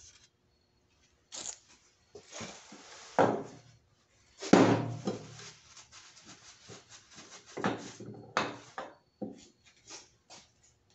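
Handling noises as the engine's main bearing cradle is lifted away and set down: a few knocks, the loudest about halfway through, with rubbing between them and small clicks near the end.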